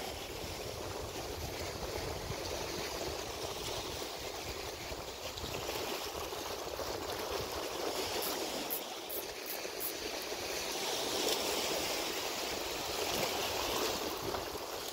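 Sea surf washing over shore rocks, a steady rushing wash that swells a little louder past the middle.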